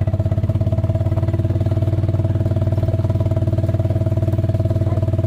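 An open-top Jeep's engine running steadily with an even, rapid pulse that holds the same pitch throughout.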